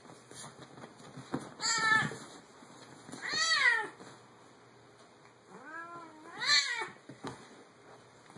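Domestic cat meowing three times in protest as a monkey grabs and wrestles with it: drawn-out calls that rise and fall in pitch, the last the longest, with faint scuffling clicks between them.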